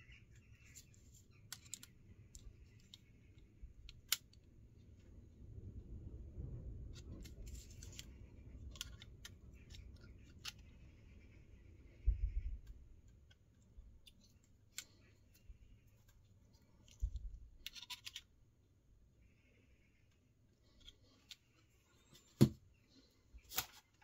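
Kershaw 2032 Esteem slipjoint pocket knife being handled, its blade snapping open and shut against the double-detent backspring: scattered sharp metallic clicks, the loudest near the end, with soft rubbing and handling noise between them.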